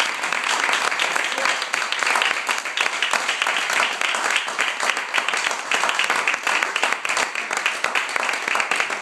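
Audience applauding steadily, with voices mixed in.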